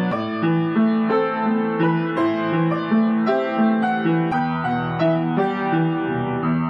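Solo piano playing a slow, evenly paced melody, with notes struck about two or three times a second over lower held accompaniment notes.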